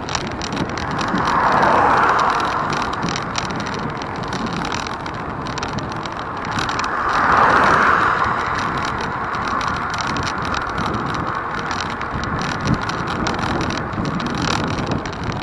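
Continuous road and vehicle noise with wind on the microphone. Twice, a louder swell rises and fades, once about two seconds in and again near seven seconds.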